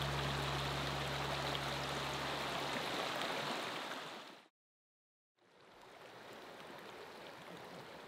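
Mountain creek rushing and splashing over rocks, fading out about four seconds in. After a second of silence, a fainter steady hiss of outdoor ambience follows.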